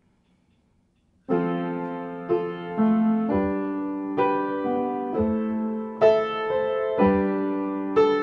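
Melodigrand upright piano played slowly: after about a second of silence, a run of held chords begins, a new chord struck roughly every second and left to ring.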